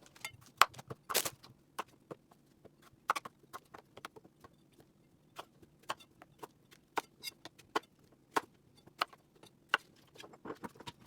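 Knife cutting a potato into chunks on a chopping board: irregular sharp knocks as the blade meets the board, a few louder strikes among many lighter ones.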